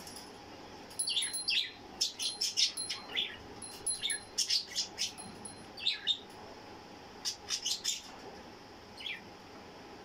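Budgerigars chirping: quick runs of short, high chirps, many falling in pitch, mixed with a few brief steady whistled notes. The chirps come thickly for about five seconds from a second in, pause, return in a short cluster, and end with a single chirp near the end.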